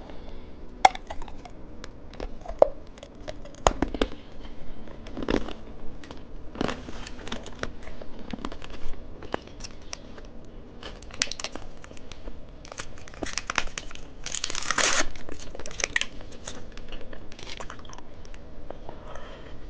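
Plastic candy wrappers crinkling and tearing open, with scattered clicks and taps. The longest, loudest stretch of crinkling comes about fifteen seconds in.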